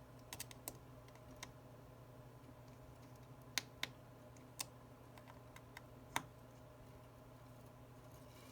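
Faint, scattered clicks and taps of small hand tools against an iPhone 11 Pro's internal parts and screws, a few of them sharper, over a low steady hum.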